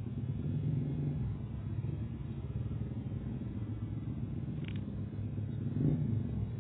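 Steady low rumble with no speech, swelling slightly about a second in and again near the end.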